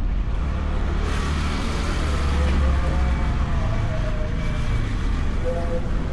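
Honda Beat scooter on the move, heard from a camera mounted on the bike: its small single-cylinder engine running under a steady low rumble, with a faint tone that wavers up and down.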